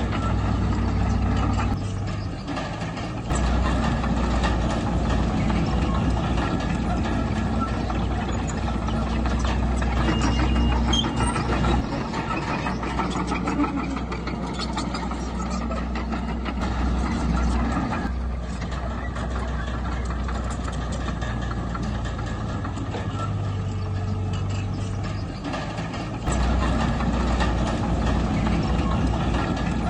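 Heavy diesel engine of earthmoving machinery running continuously, its low drone changing in strength a few times as the load shifts.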